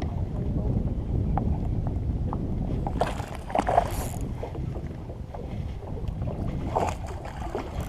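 Wind buffeting the microphone on an open boat on the water, a steady uneven low rumble, with a couple of brief louder rustling or splashing bursts about three seconds in and again near the end.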